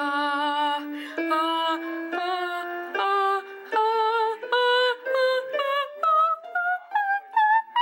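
A woman singing a rising scale one note at a time along with an electronic keyboard, climbing about two octaves. The steps come quicker toward the top.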